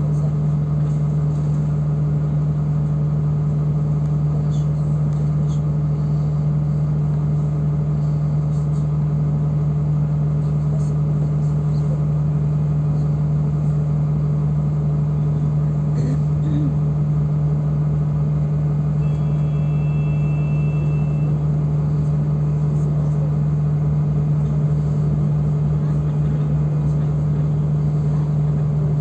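Steady low drone of a city bus in motion, heard from inside the passenger cabin, with a faint short high beep about two-thirds of the way through.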